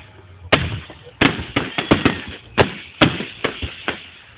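Fireworks salute shells bursting: a quick, irregular run of about a dozen sharp bangs, several close together in the middle.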